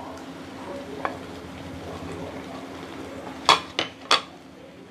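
Wooden spatula stirring thick masala gravy in a nonstick pan over a low sizzle of the simmering gravy; about three and a half seconds in, three quick knocks of the spatula against the pan.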